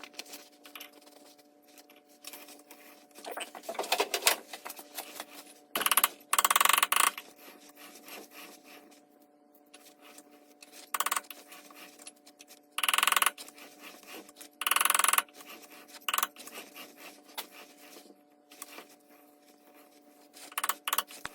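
Small metallic clinks and knocks as a brass workpiece is adjusted and trued up in a lathe chuck, with several louder noisy stretches about a second long.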